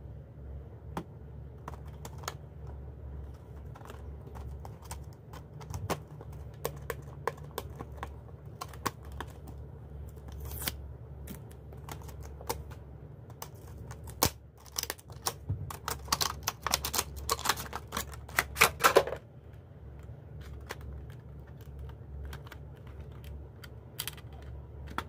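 Hands handling clear plastic packaging holding USB cables: scattered clicks and crinkles, with a dense run of crackling plastic in the middle, the loudest part. A steady low hum lies underneath.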